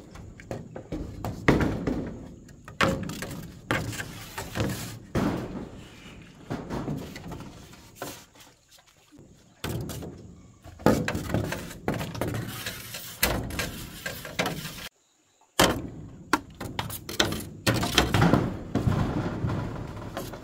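A series of irregular knocks and thuds, about one or two a second, with a short break of silence partway through.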